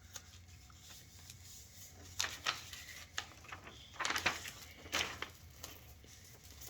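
Sticky tape being pulled and pressed onto paper and cardboard: several short scratchy rasps, with the paper rustling as it is handled.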